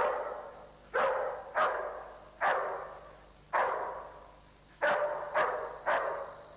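A police dog in protection training barking in single loud barks, eight in about six seconds. Each bark echoes and fades away slowly.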